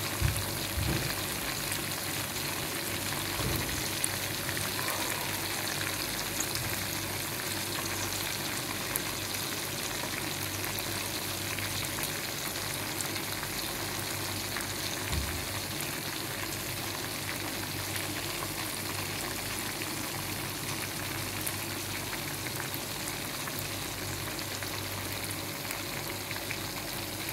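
Chicken breasts frying with lemon halves and onion in bubbling hot oil: a steady, even sizzle. A few short low knocks come in the first few seconds and once about halfway.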